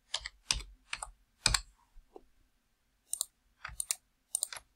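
Computer keyboard keystrokes: four sharp strikes about half a second apart, typing in a four-digit number. A few lighter clicks in quick pairs follow near the end.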